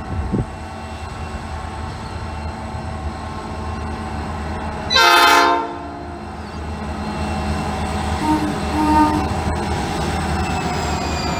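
81 class diesel-electric freight locomotive, whose EMD V16 two-stroke engine is running steadily and growing louder as the train approaches. About five seconds in it sounds one loud blast of its multi-tone horn, lasting under a second. Two short, softer tones follow a few seconds later, and high tones slide down near the end.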